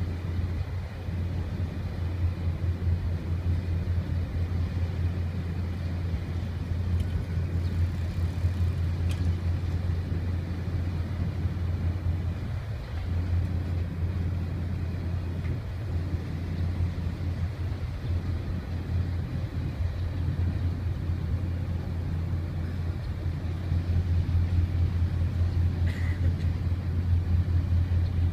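Steady low rumble of the cruise ship Concerto's engines as it moves past at slow speed, getting a little louder near the end.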